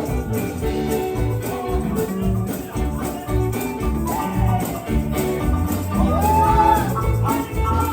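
Gospel worship music: voices singing a praise song over music, with percussion keeping a steady beat.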